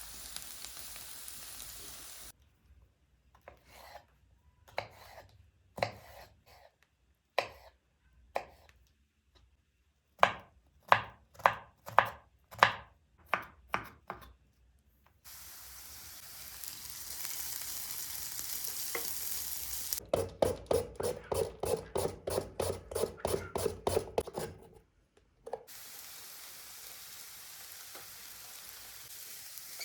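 Vegetables sizzling steadily as they fry in oil in a pan, broken off by a knife chopping on a cutting board: a few slow cuts that speed up to a run of about two a second. After the sizzle returns, a quick series of knocks comes about three a second on top of it for several seconds.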